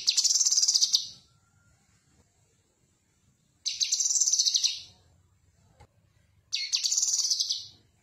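Cucak kinoi, a caged leafbird, singing three short, high, rapidly trilled phrases, each about a second long and a few seconds apart.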